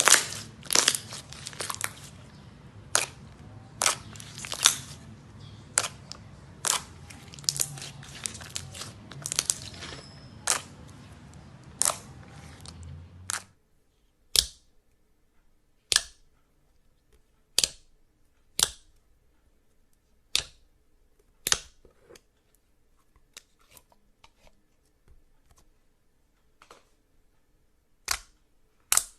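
Slime being handled, making sharp clicking pops about every second or two. A low steady hum underneath stops abruptly about halfway through.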